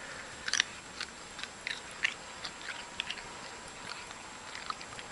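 An animal chewing and crunching food: a run of small, irregular crunches.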